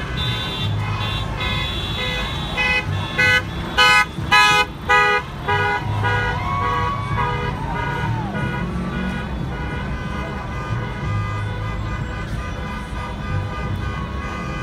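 Many car horns honking at once in stopped traffic, held tones overlapping, with a run of short loud blasts about three to five seconds in. Low traffic rumble underneath.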